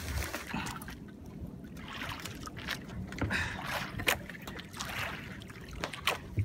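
Handling noise in a small wooden outrigger canoe: scattered light knocks and rustling as a large giant trevally is pulled out of a cloth sack and lifted up, over water lapping at the hull.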